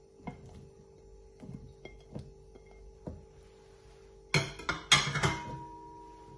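A spatula tapping diced tomatoes off a plate into a plastic food processor bowl, a few soft knocks, then a loud, sharp clatter of dishware a little over four seconds in, as the plate and spatula are set down.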